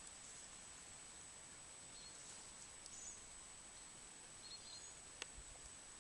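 Faint outdoor ambience: a steady hiss with a few faint, short, high bird chirps, and a single sharp click shortly before the end.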